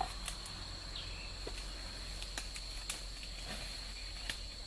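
Steady high insect trilling, cricket- or cicada-like, with scattered sharp clicks and snaps.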